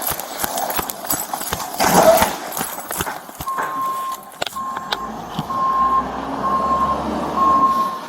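A heavy machine's reversing alarm beeping at an even pace, about one beep a second, starting about three and a half seconds in, over a low engine rumble. Before it come quick knocks and rustling.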